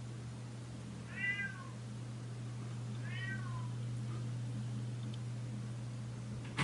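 Domestic cat meowing twice, about a second in and again about three seconds in, each meow short and falling in pitch, over a steady low hum. A sharp click comes right at the end.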